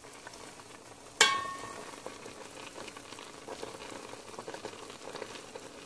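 Pumpkin pieces bubbling in sugar syrup in a metal pot, a steady soft crackling simmer. About a second in, a metal spoon strikes the pot with a sharp clink that rings briefly.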